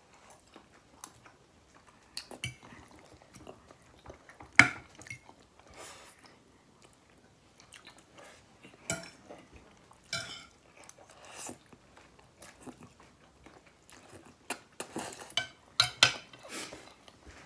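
Knife and fork clinking and scraping on a plate, with chewing in between. Scattered sharp clicks, the loudest about four and a half seconds in, and a quick flurry of clinks near the end.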